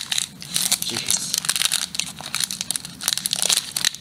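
Foil wrapper of a Pokémon trading-card booster pack crinkling and tearing as it is wrestled open by hand, a dense run of crackles.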